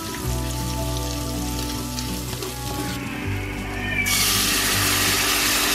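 Ground spice paste frying in a non-stick pan while it is stirred, then water poured into the hot pan about four seconds in, setting off a sudden loud sizzling hiss. Background music plays throughout.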